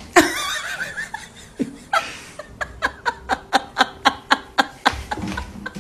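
A person laughing: a wavering high-pitched sound at first, then a run of short, evenly spaced laughing bursts, about four a second, that stops about five seconds in.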